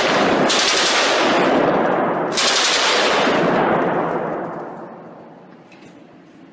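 Belt-fed machine gun firing long, rapid bursts for about four seconds, the shots echoing in an indoor shooting range, then dying away.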